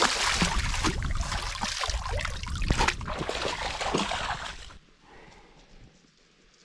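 Water splashing and sloshing close by, a dense run of crackling splashes that stops suddenly about five seconds in, leaving only faint background.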